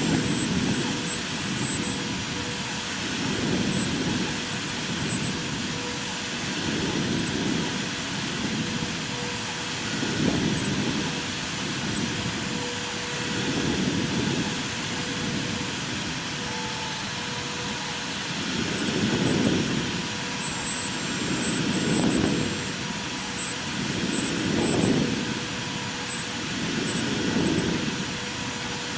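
CNC router spindle running steadily while engraving MDF, a constant high hiss and whine, with the cutting sound swelling about every three seconds as the tool makes its passes.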